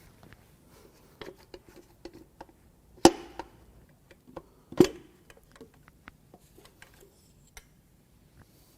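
Metal engine parts, the connecting rods, rod caps and pistons of a BMW S52 inline-six, being handled: scattered light clicks and clinks with two loud knocks about three and five seconds in.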